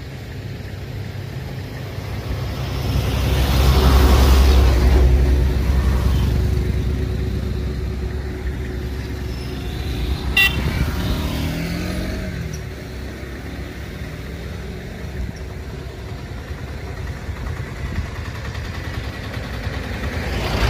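Motor vehicles passing by, the loudest one swelling to a peak about four seconds in and then fading. There is a short, sharp click about ten seconds in.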